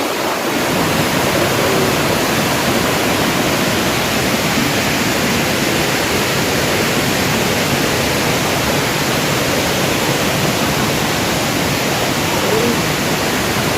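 Steady rushing of a waterfall, a loud even noise close by with no break.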